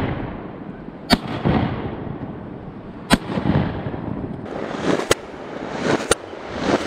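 Four shotgun shots, about a second in, then roughly two seconds apart, the last two a second apart, each sharp report followed by a brief echo.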